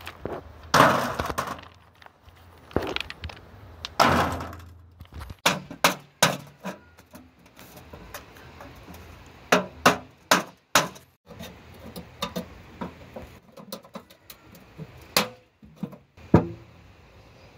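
Stones being set and dropped one by one into a square galvanised metal tin lined with a foil tray: a series of irregular sharp knocks and clinks of stone on metal, some much louder than others.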